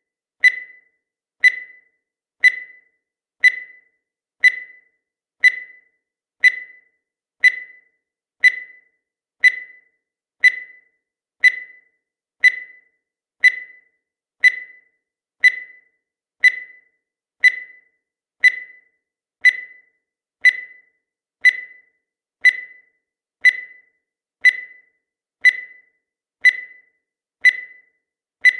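Countdown timer sound effect: a short, high-pitched electronic tick once a second, each dying away quickly, steady and unchanging.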